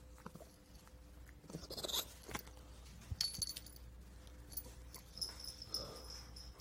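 Barry coughing in short, rough bursts, about one and a half to two seconds in and again around three seconds in. A thin, high whistling tone runs through the last second and a half.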